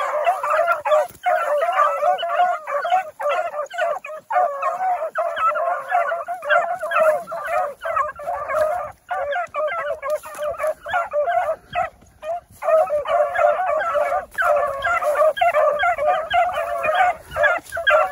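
Pack of beagles baying together while running a rabbit: many voices overlapping almost without pause, with brief lulls about nine and twelve seconds in.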